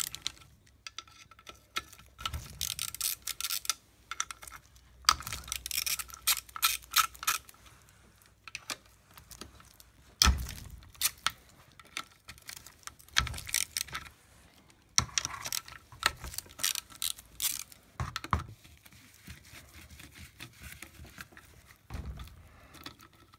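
Ratchet wrench with a socket clicking in several short bursts with pauses between them, as the clutch-cover bolts of a small ATV engine are loosened and spun out. Light metallic clinks of the tool and bolts are mixed in.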